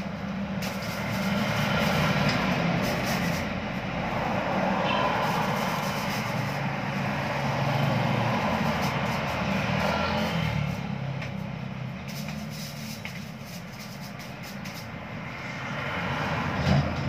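An engine running, with a low steady hum that swells and fades over several seconds; now and then a light knock.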